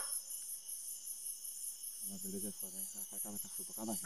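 Night insects, crickets, chirping in a high, rapid, evenly pulsing trill. From about halfway through, faint distant dogs baying.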